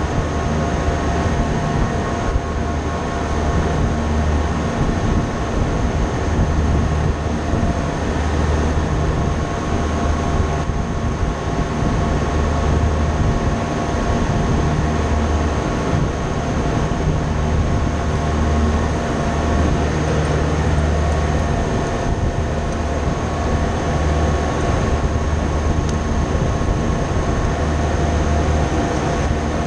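Steady drone of running machinery: a low rumble that swells and fades every second or two under a constant hum and whine.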